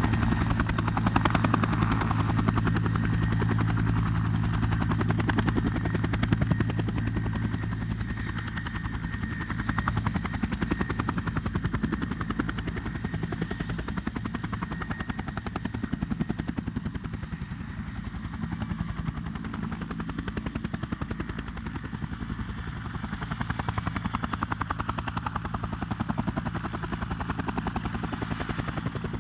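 Bell 212 helicopter heard from outside, its two-bladed main rotor chopping rapidly and steadily, with a thin turbine whine above it. The low engine hum fades after about ten seconds and the whole sound eases off somewhat, swelling a little again near the end.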